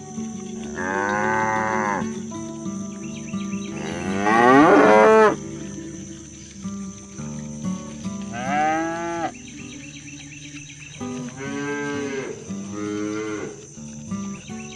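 Cattle mooing: five separate long calls, the loudest about four seconds in with a rising then falling pitch, and two close together near the end. A steady high insect-like drone runs underneath.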